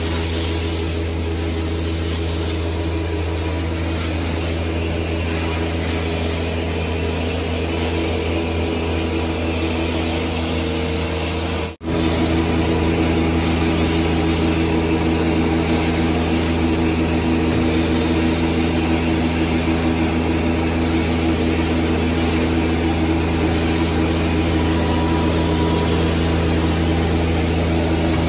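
Carpet-cleaning hot-water extraction machine running steadily, a continuous hum and hiss of its vacuum drawing through the wand as it sprays and sucks back water from carpet tiles. The sound drops out for an instant about twelve seconds in and returns a little louder.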